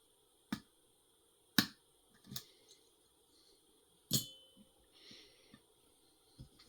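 Lock pick and tension tool clicking in a Schlage Primus Everest pin-tumbler cylinder during picking: a handful of sharp separate clicks, the loudest about four seconds in with a brief metallic ring.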